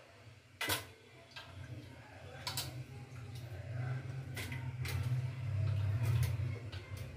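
Four sharp clicks roughly two seconds apart, the first the loudest, over a low hum that grows louder partway through.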